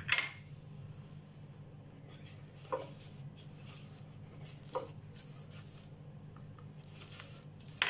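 Quiet kitchen handling over a steady low hum: a sharp clink right at the start, then two soft knocks about two seconds apart, as flour goes into melted butter in a nonstick saucepan.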